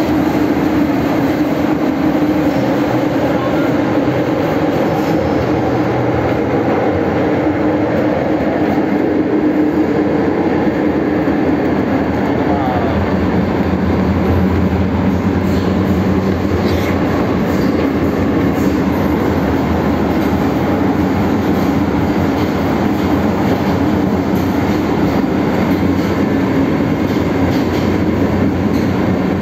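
MTR M-Train (1979-built metro train) running at speed through a tunnel, heard from inside the carriage: a steady, loud rumble of wheels on rails and running gear, with a low hum underneath.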